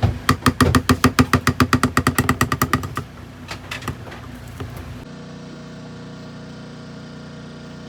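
A machine clattering in fast, even beats, about eight a second, for about three seconds, then dying down. About five seconds in it gives way abruptly to a steady engine-like hum with a low drone.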